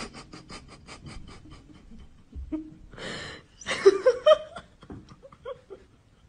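A person laughing: a run of quick breathy huffs, about six a second, fading out, then a louder burst of high-pitched giggling about four seconds in.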